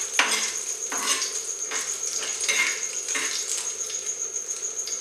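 Steel spoon scraping and knocking against a steel kadai, a stroke every half second or so, as it stirs whole cumin, cardamom and cloves sizzling in hot ghee.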